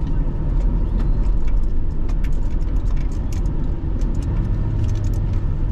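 Car engine and tyre noise heard from inside the cabin while driving, a steady low rumble that grows a little louder about four seconds in, with scattered light ticks throughout.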